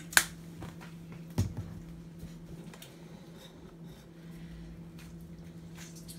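Steady low hum under quiet handling noises: a sharp click just after the start and a duller knock about a second later.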